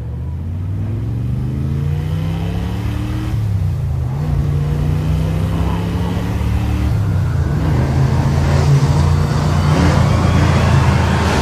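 Outboard motor on an inflatable boat pushing the boat along, its pitch rising over the first few seconds as it speeds up, then running steadily at speed. A rushing hiss of wind and water grows louder toward the end.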